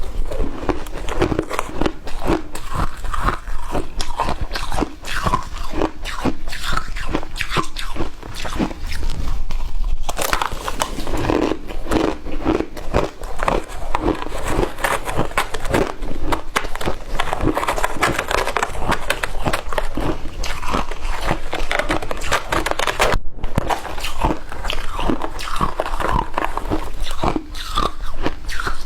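A person biting and chewing shaved ice: continuous, dense, irregular crunching.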